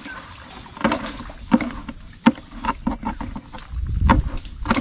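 Insects trilling steadily at a high pitch, with irregular light clicks and knocks from food preparation over it.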